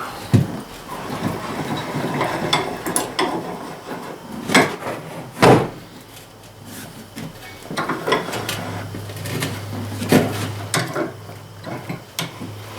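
Tractor front tire and steel rim being worked to break the tire bead loose: several sharp knocks with scraping and creaking in between, as the stuck bead resists.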